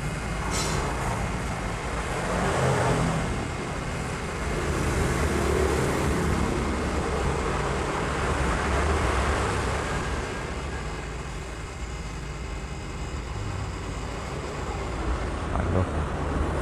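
Steady low rumble with an even hiss over it, running without a break; no single knock or click stands out.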